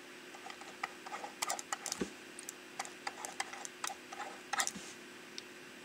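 Stylus tapping and scratching on a tablet as equations are written by hand: irregular light clicks and ticks, busiest in the middle, over a faint steady hum.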